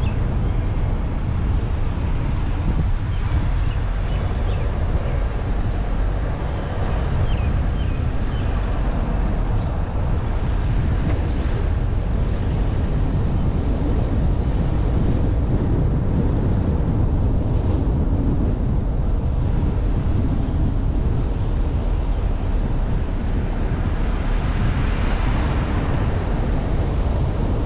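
Steady low rumble of a car driving along a paved road, with wind buffeting the microphone.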